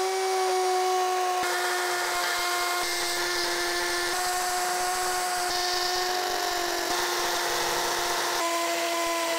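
Cordless drill boring holes for wall plugs into a masonry wall, its motor running at a steady pitch, with small changes in tone every second or so.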